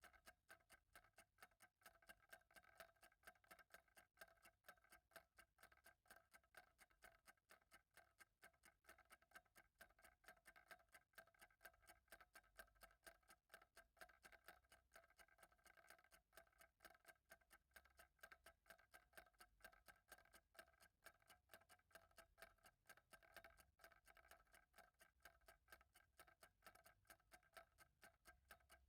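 Faint, steady ticking of a clock, quick regular ticks with no pause.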